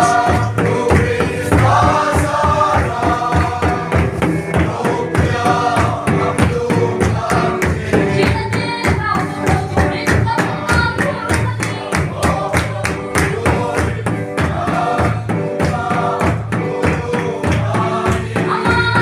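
A group singing a gospel hymn together over a steady, fast drum beat.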